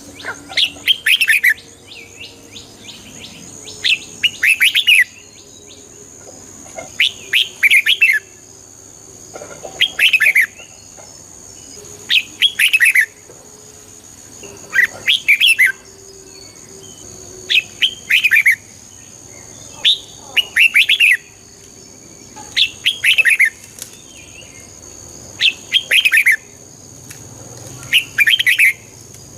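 Red-whiskered bulbul singing: a short phrase of quick, bright whistled notes, repeated about every two and a half to three seconds. A faint steady high tone runs behind it.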